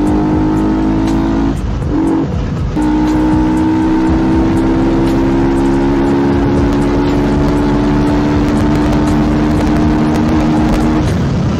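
Yamaha R15's single-cylinder four-stroke engine and loud exhaust running at steady high revs under way, the note held level, with a short break about two seconds in.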